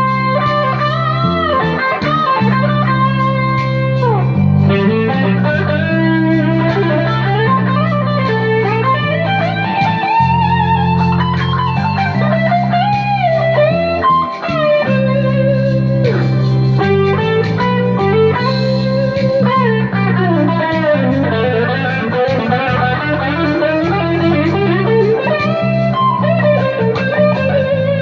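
Electric guitar (Fender Stratocaster) playing an improvised lead solo, with many bent and sliding notes, over a backing track of steady bass and chords.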